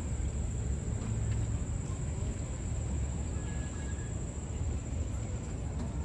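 Outdoor park ambience: a steady low rumble, with a thin, steady high-pitched insect drone above it. A short bird note comes about three and a half seconds in.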